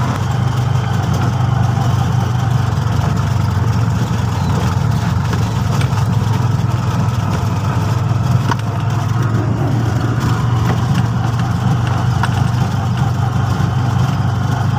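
Auto-rickshaw (three-wheeler) engine running steadily while driving, heard from inside the cab as a constant low drone.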